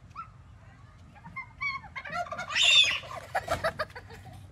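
A turkey gobbles once, a loud, rapid, rattling call starting about two and a half seconds in and lasting a second or so.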